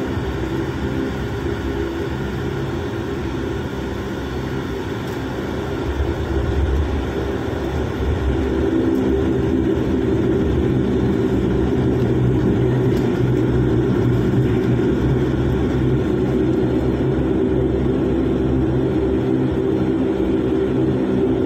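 Airliner engines heard inside the passenger cabin as a steady, loud hum and rush. The sound grows louder about six seconds in and again about eight seconds in, then holds at the higher level: the engines spooling up for takeoff.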